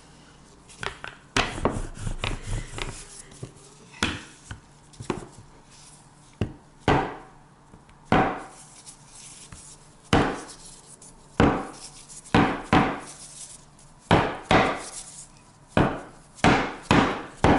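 Metal pelmeni mould knocked repeatedly against the countertop, sharp knocks about once a second, to tap the finished dumplings out of the mould.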